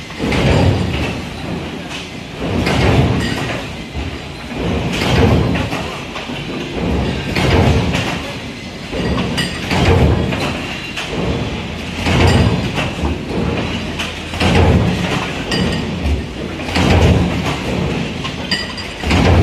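Metal stamping press line running automatically, each press stroke a rumbling surge that comes about every two and a half seconds, with a few small sharp metallic clicks between strokes.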